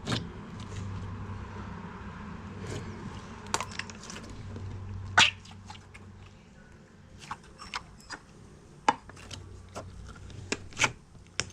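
Clear slime being handled, stretched and poked, giving scattered sticky clicks and pops. The loudest snap comes about five seconds in.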